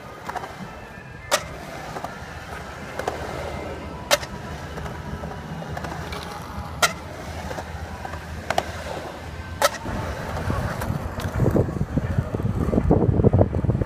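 Skateboard wheels rolling on a concrete bowl, a steady rumble broken by four sharp clacks about three seconds apart. Near the end the rumble grows louder and rougher, with wind buffeting the microphone.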